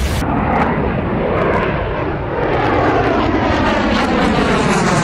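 Aircraft engine noise from a plane flying past, with a steady rumble and a pattern of pitches sliding downward as it goes by.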